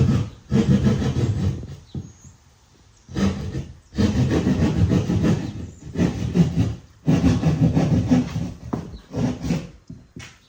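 An adult female raccoon growling at close range, defending her kits: a series of rough, rasping bursts, some lasting a couple of seconds, with short pauses between them.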